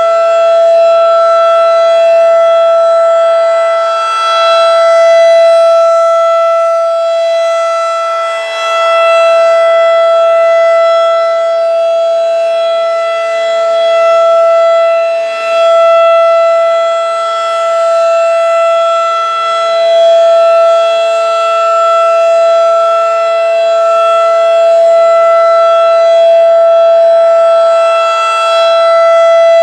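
Federal Signal 2001-DC rotating outdoor warning siren sounding its steady alert signal, one unwavering tone of about 667 Hz. The loudness slowly swells and fades as the rotating horn turns toward and away from the listener.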